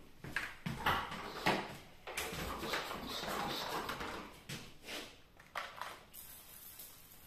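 Handling noises: several sharp knocks, then a rustling scrape lasting about two seconds, then a few more knocks, as a plastic flush-mount electrical box and its wires are handled in a wall recess.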